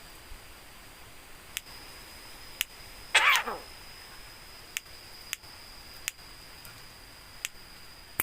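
Javan myna giving one loud call that falls steeply in pitch, about three seconds in, among a few sharp clicks and a steady high-pitched whine.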